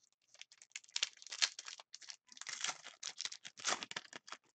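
Foil trading-card pack wrapper crinkling and crackling as hands tear it open, dense crackles starting about a second in.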